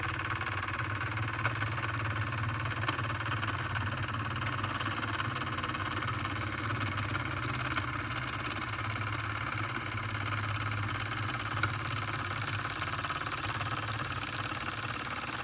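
Steady motor hum from a motorized display turntable slowly rotating the model, with a few faint ticks.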